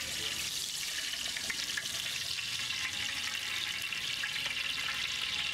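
Groundnut oil poured into a hot aluminium cooking pot, sizzling steadily with a dense crackle as it hits the hot metal.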